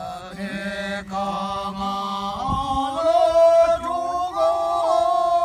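A group of men chanting in unison, slow long held notes that start together, step up in pitch about halfway through and grow louder.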